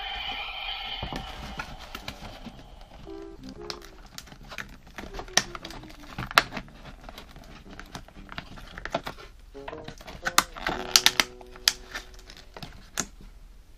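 Clear plastic blister packaging crinkling and clicking as it is handled and opened, in many sharp crackles, with faint background music of short low notes under it. A pitched musical sound cuts off about a second in.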